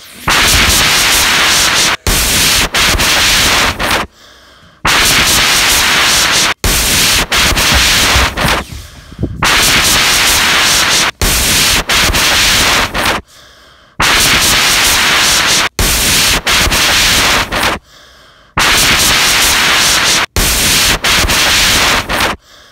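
Loud, even static hiss that cuts out abruptly for a moment about every four and a half seconds, with brief dropouts in between.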